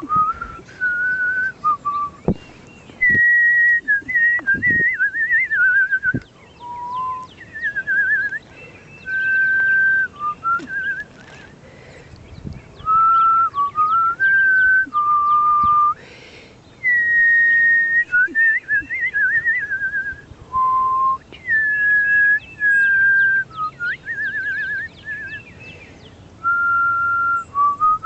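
A woman whistling to call wild cardinals: phrase after phrase of a held clear note running into quick warbling trills, with short pauses between.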